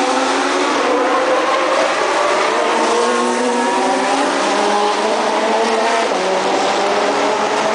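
Several race car engines, a Le Mans prototype among them, accelerating out of a corner together. Their overlapping notes climb in pitch, loud and unbroken.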